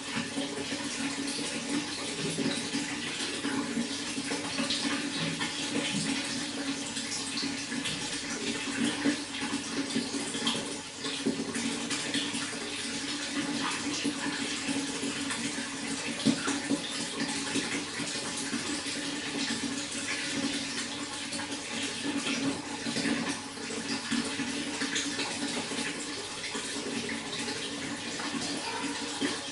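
Running water flowing and splashing steadily, a continuous rushing sound with fine flickering spatter.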